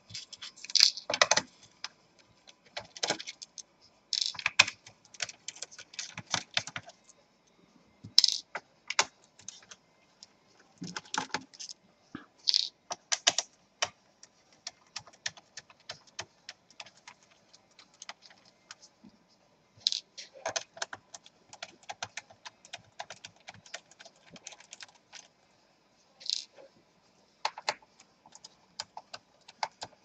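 Small screwdriver taking the screws out of a laptop's plastic bottom cover: irregular clusters of light clicks and small metallic rattles, with a few louder clicks.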